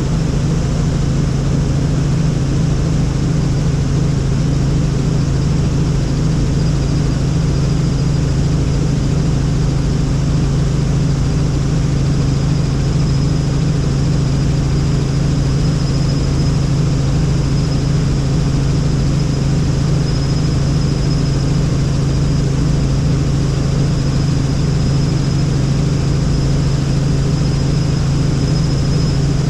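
Helicopter in flight: a steady drone of engine and rotor that holds level without change, with a faint high whine above it.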